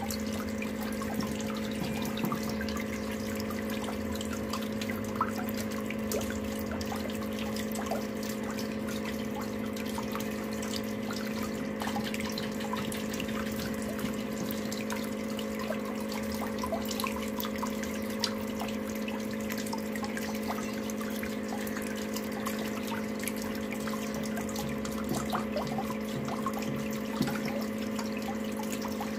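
Water swirling and draining in a whirlpool vortex, with a steady hum from the machine that drives it and scattered small splashes and clicks.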